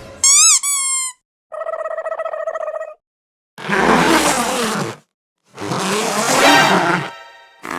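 A run of short comedy sound effects with brief gaps between them: a quick string of whistle-like chirps that rise and fall in pitch, a buzzy held tone about a second and a half long, then two loud noisy blasts of about a second and a half each.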